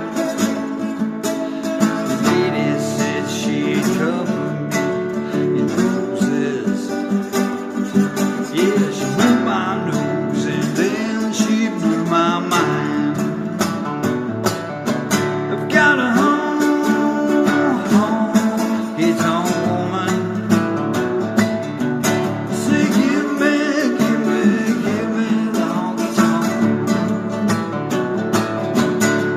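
Blues guitar instrumental break on acoustic slide guitar: notes glide up and down in pitch over a steady picked accompaniment.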